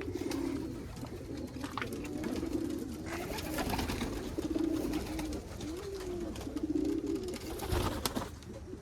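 Domestic pigeons cooing, several birds overlapping in a steady run of low, warbling coos that rise and fall.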